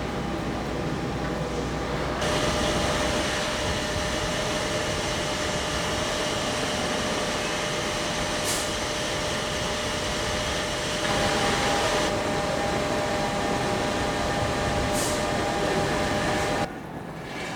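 Train noise at a railway station: a steady rolling rumble with humming tones, changing abruptly about two seconds in, about eleven seconds in and near the end, with two short hisses in between.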